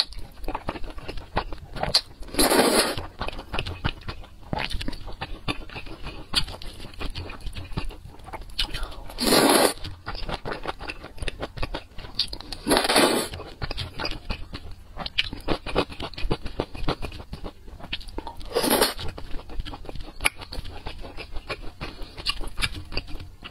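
Thick noodles slurped up four times, each slurp about half a second to a second long, with wet chewing and small mouth clicks in between.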